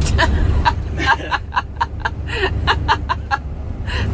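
1995 GMC W4 box truck's Chevy 350 engine running, a steady low rumble heard inside the cab. Over it comes a quick series of about ten short, high chirps, roughly four a second.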